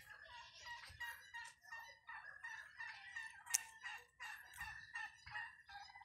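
Farmyard poultry calling: a busy, continuous chorus of many short clucks and chirps, with one sharp click about three and a half seconds in.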